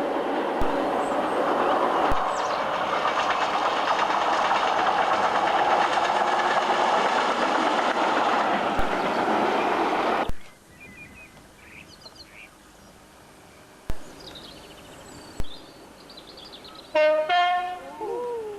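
Freight train rolling past on the mainline: a steady loud rumble and rattle of wagons that cuts off abruptly about ten seconds in. After that it is much quieter, with birds chirping and a brief pitched call near the end.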